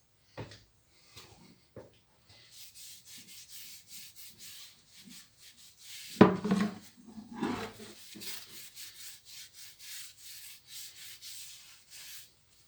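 Cured epoxy metal filler on a steering wheel rim being sanded by hand: quick rubbing strokes, about two a second. A few light knocks come at the start and one loud knock about six seconds in.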